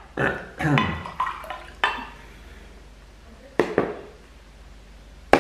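A stemmed drinking glass being handled: sharp glass knocks and clinks as it is lifted and set down, the loudest just before the end. A few short hums or murmurs of voice come in the first two seconds.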